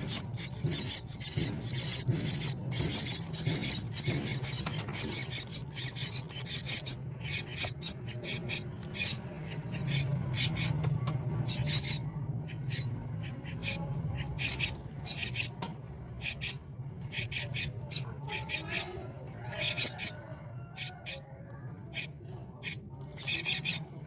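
Myna nestlings begging: many short, harsh, high-pitched calls in quick succession, packed together for the first half and coming in sparser clusters later. A steady low hum runs underneath.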